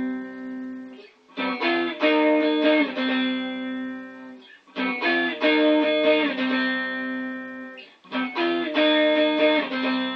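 Guitar strumming chords with no singing, in three phrases of a few strums each, starting about a second in, near the middle and near the end, the chords ringing out and fading between phrases.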